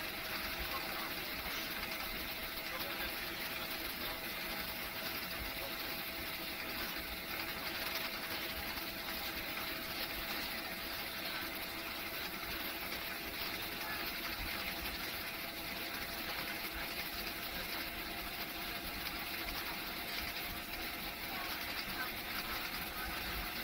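Steady cabin noise of a jet airliner taxiing, heard from inside the cabin: the engines run at idle with a faint steady whine over an even rush.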